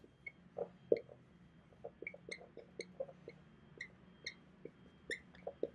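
Dry-erase marker writing on a whiteboard: an irregular string of short taps and little squeaks as each stroke is made.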